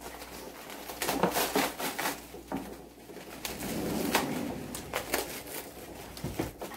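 Plastic wrapping crinkling and crackling in short bursts as it is pulled and torn open by hand. About four seconds in there is a brief low hum.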